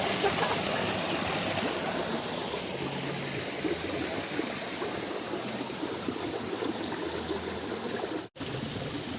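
Water from a small waterfall splashing and rushing steadily over rocks into a stream. It cuts out for an instant near the end.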